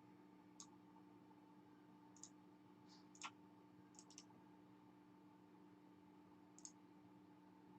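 Faint computer mouse clicks, seven scattered single clicks, over a faint steady hum.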